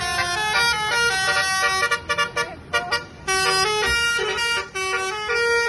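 Indonesian 'telolet' multi-tone bus horn playing a tune: several horn tones sound together and change pitch in steps. About two seconds in it breaks into a few short toots, then plays on in longer notes.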